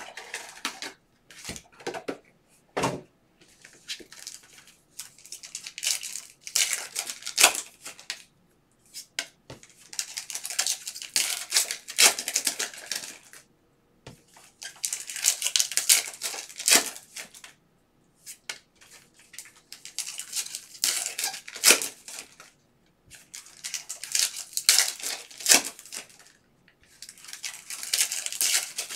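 Foil trading-card packs being torn open and crinkled by hand, in repeated crackling spells of a few seconds each. Between them come light clicks and rustles as the cards are handled.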